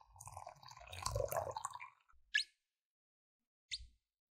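Silicone spatula stirring instant coffee, sugar and hot milk in a glass mug, with soft swishing and liquid sloshing for about two seconds. Then two short clicks, the second a little over a second after the first.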